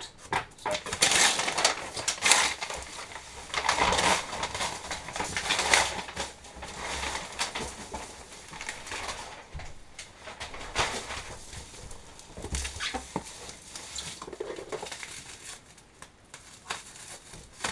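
Cardboard, packing paper and bubble wrap rustling and crinkling in irregular bursts as a parcel is unpacked and a bubble-wrapped box is lifted out and handled.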